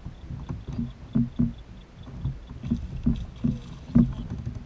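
A hooked fish thrashing and splashing at the surface beside a plastic fishing kayak during the fight, heard as a series of irregular thumps, the loudest about a second in and again near the end.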